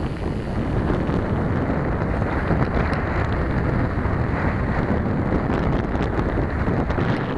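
Wind buffeting the microphone of a camera on a moving bicycle: a steady, fairly loud low rumble with no let-up.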